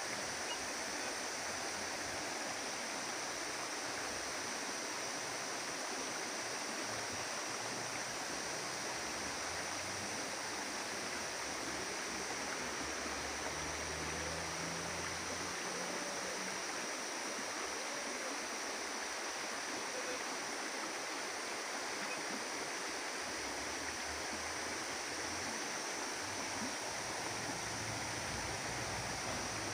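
Steady rush of flowing water from a waterfall and its stream.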